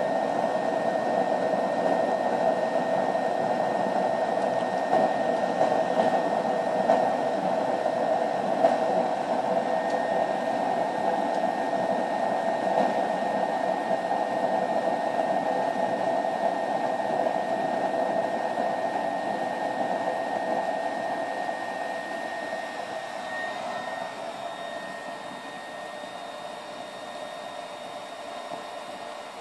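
BioLite camp stove's built-in fan forcing air into the fire, a steady rushing whir with a thin high whine over it. It grows quieter over the last several seconds.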